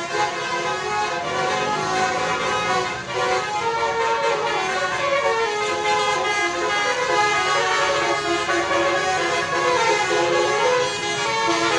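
Telolet horn, the multi-tone musical horn fitted to Indonesian buses, playing a continuous tune of short stepped notes.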